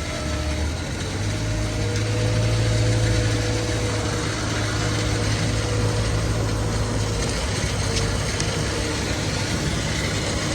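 Rock slinger truck's engine running steadily while it works, with a continuous rush of noise over the engine hum.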